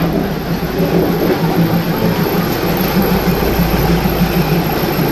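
State Railway of Thailand diesel railcar passing slowly and very close, its engine running with a steady low drone.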